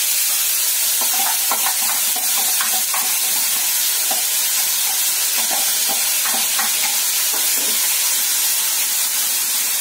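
Chopped tomatoes and chillies sizzling loudly and steadily in hot oil in a steel kadai, with a ladle stirring and scraping the pan now and then.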